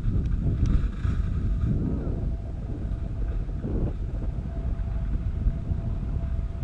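Wind buffeting the microphone of a camera carried downhill on skis, a steady low rumble with gusty swells, mixed with the scrape of edges on packed snow.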